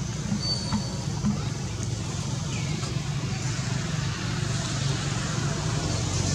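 Outdoor background noise: a steady low rumble, with a few faint high chirps near the start and a faint falling call about halfway through.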